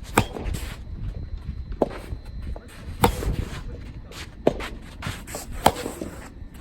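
Soft tennis rackets striking the rubber ball in a back-and-forth rally: five sharp hits about a second and a half apart, alternately louder and fainter as the near and far player strike. Strong wind rumbles on the microphone, with shoes moving on the court.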